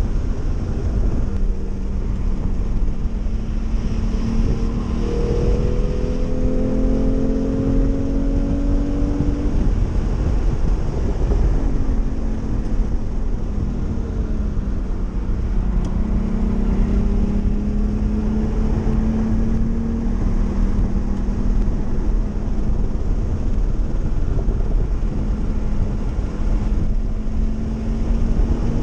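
Porsche 911 flat-six engine heard from inside the cabin at speed, its pitch rising and falling in long slow sweeps as the car accelerates and slows, over a loud low rumble of tyres and wind.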